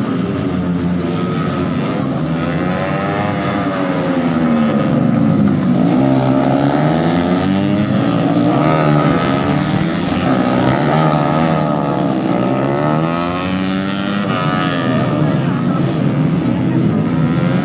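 Several racing motorcycle engines at high revs, their pitch repeatedly rising and falling and overlapping as the bikes accelerate, shift and pass.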